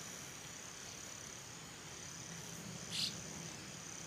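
Insects, cricket-like, trilling in a steady high-pitched drone, with one short, sharp high sound about three seconds in.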